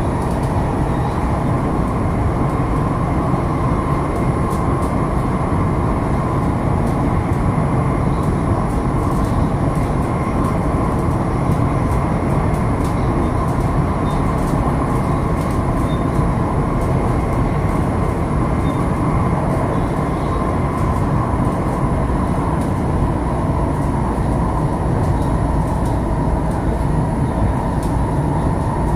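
Steady running noise heard inside the cabin of a Qingdao Metro Line 11 train, a CRRC Sifang-built Type B metro car, as it runs at speed on elevated track: a dense rumble of wheels on rail with a faint steady high whine above it.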